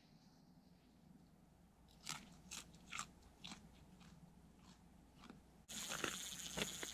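Ice-fishing reel's drag clicking in short, irregular bursts, about two a second, as a hooked burbot pulls line off. A steady hiss switches on abruptly near the end, and the clicks carry on over it.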